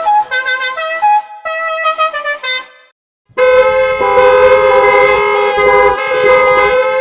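Vehicle horns. First comes a quick run of short toots that step between different pitches and stop about three seconds in. After a brief gap, a loud, sustained blast of several tones at once starts and holds with small shifts in pitch.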